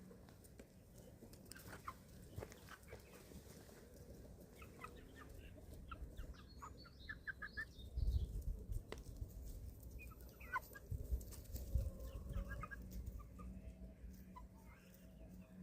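Young chickens about eleven weeks old calling softly while feeding, with short scattered peeps and clucks, in clusters a little over halfway through. Several dull low thumps around the middle are the loudest sounds.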